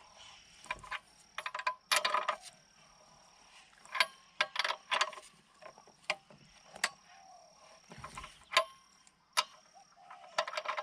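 Wrench tightening a bolt on a mini excavator: irregular sharp metallic clicks and clanks, some in quick clusters.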